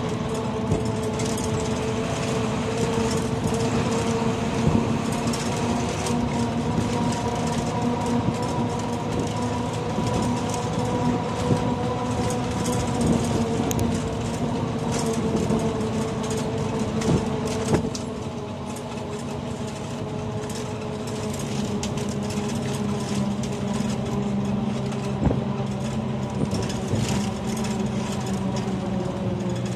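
Running noise of a moving vehicle, heard from aboard: a steady drone with several held tones, over road or track rumble and scattered clicks and rattles. It becomes a little quieter about two-thirds of the way through.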